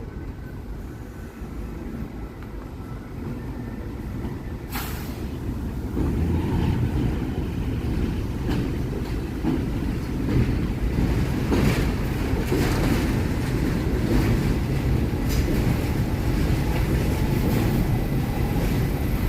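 NYC Subway R68 train pulling into the station, its low rumble growing louder from about six seconds in, with sharp wheel clicks over the rail joints.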